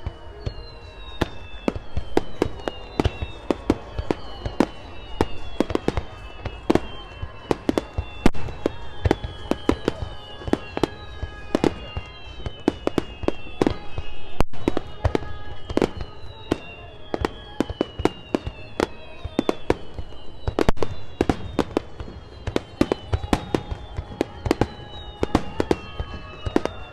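Aerial fireworks shells bursting in a rapid barrage: dense sharp bangs several times a second, over many overlapping whistles that fall in pitch.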